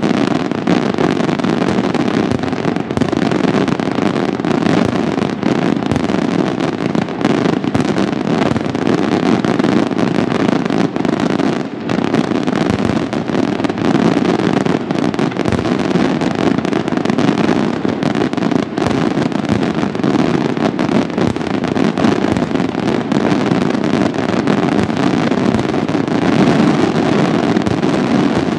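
Senatore Italian daytime fireworks: a dense, continuous barrage of salute bangs and crackling bursts. The reports come so fast that they merge into one unbroken rattle, with a brief lull about twelve seconds in.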